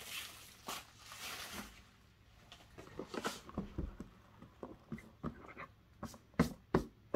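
Handling of a cardboard box: a soft rub as hands slide over the lid, then a series of light taps and knocks as the lid is worked off the box, with two louder knocks near the end.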